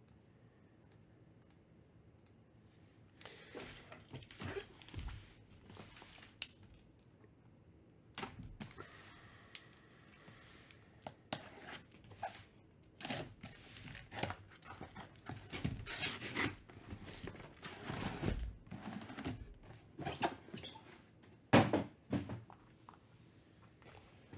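A cardboard case of trading-card boxes being opened and its shrink-wrapped boxes lifted out and set down on a table: tearing and scraping cardboard, crinkling plastic wrap and the knocks of boxes put down. It begins about three seconds in, with two sharp knocks, one about six seconds in and a louder one near the end.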